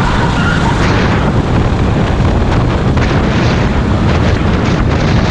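Loud onboard sound of a racing kart at speed: the kart's engine running, largely buried under heavy wind rumble on the camera's microphone.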